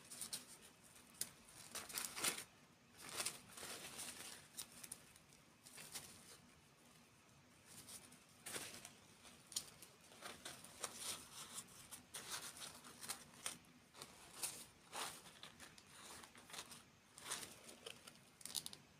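Plastic or paper packaging being crinkled and torn: irregular rustling and crackling bursts, some louder than others.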